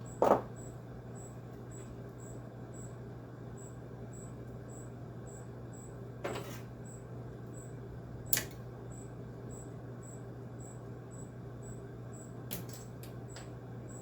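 Steady low hum with a handful of sharp clicks and knocks from handling tools and parts: one just after the start, two more around the middle, and a few close together near the end.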